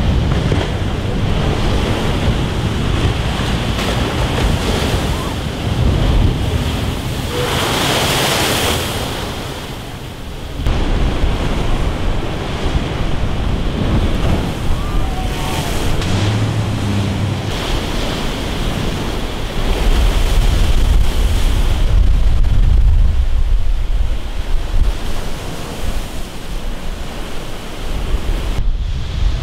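Heavy storm surf, driven by a hurricane offshore, crashing and churning against a sea wall and rocks, with wind buffeting the microphone. A wave breaks with a surge of hiss about eight seconds in, and the sound shifts abruptly a few times where the shots change.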